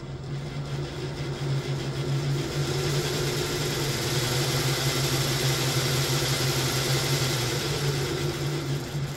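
Lionel O-scale GE U33C model diesel locomotive running on both motored trucks: a steady hum with motor and gear whir that grows louder through the middle and eases off near the end as the speed changes. Something at the front end is rubbing as it runs, which the owner has not yet traced.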